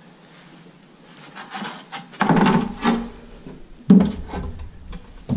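A laminate plank being handled on a wooden stair: quiet shuffling, then a wooden scrape about two seconds in and a sharp knock a little before four seconds.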